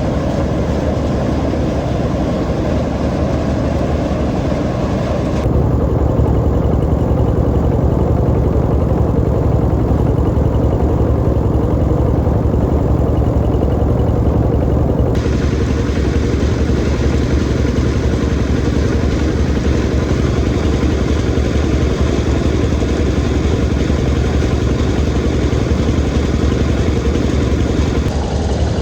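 An engine running steadily under load, with most of its sound at the low end. Its character changes suddenly twice partway through.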